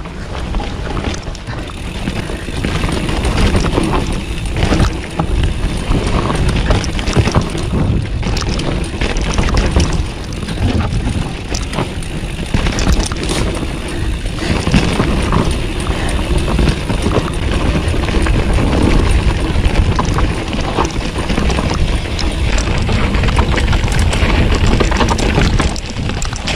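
Polygon Siskiu T8 mountain bike descending a rough dirt trail at speed, heard from a helmet-mounted camera: wind rumbling on the microphone, tyres running over dirt, and the bike rattling and knocking over bumps.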